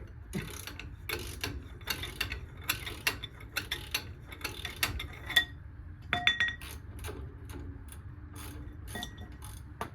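Socket ratchet clicking in quick, even strokes as a just-broken-loose 21 mm front suspension nut is run off. The clicking thins out about five and a half seconds in, leaving a few scattered clicks and brief metallic clinks.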